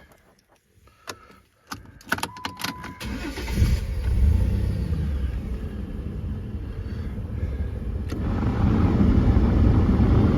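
A few clicks and a short steady tone, then the 2007 Dodge Nitro's 3.7-litre V6 cranks and starts about three seconds in, surges briefly and settles into a steady idle. From about eight seconds in a louder rushing sound joins the engine, as the air conditioning runs at full blast.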